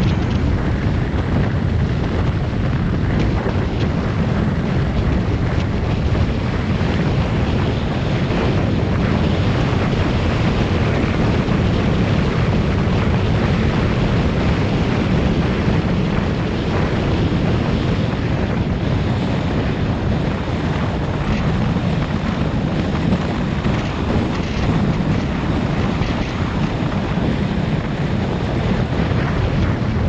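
Heavy, steady wind buffeting a helmet-mounted action camera's microphone, as on a moving motorbike.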